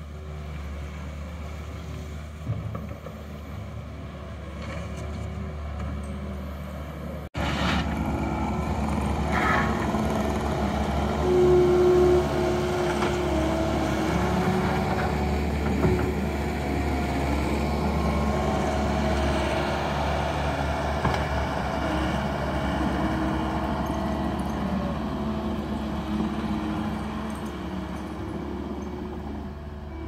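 John Deere compact track loader's diesel engine running steadily while it spreads and levels gravel fill with its bucket, with a few shifting pitched whines over a low hum. For the first seven seconds, before a sudden cut, there is only a quieter steady hum.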